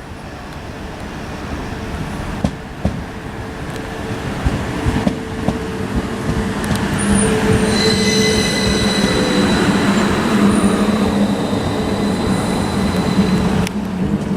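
Class 333 electric multiple unit approaching and growing louder, with wheels clicking over rail joints. From about eight seconds in, a steady high whine or squeal holds over the running noise.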